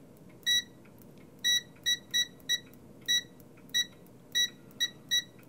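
Continuity beeper of a Parkside PDM 300 C2 digital multimeter giving about ten short, high beeps at uneven intervals as the test-lead tips make and break contact. Each beep signals a closed circuit.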